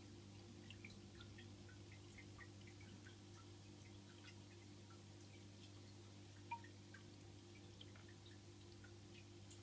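Faint aquarium filter running: a steady low hum with many small irregular drips and bubble pops of water, one slightly louder plink about two-thirds of the way through.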